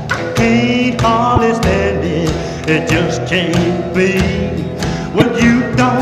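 A song with a singing voice over a steady drum beat.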